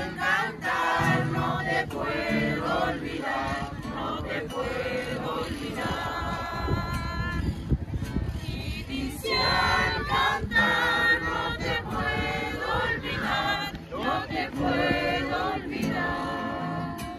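Mixed choir of men's and women's voices singing a song together in phrases, accompanied by an acoustic guitar.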